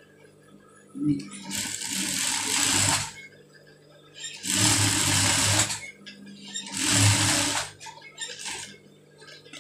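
Sewing machine stitching in three short runs of a second or so each, with pauses between as the fabric is turned around the curve of the hood seam, over a steady low hum.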